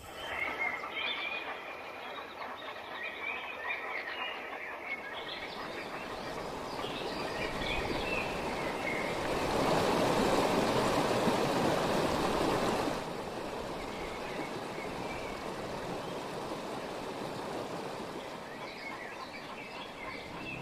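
Birds calling, joined by a shallow stream running over rocks that swells up about eight seconds in, is loudest for a few seconds, and then cuts off suddenly, leaving the birds.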